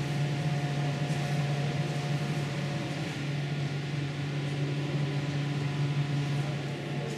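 Steady low mechanical hum with a constant droning tone; a fainter higher tone in it stops about three seconds in.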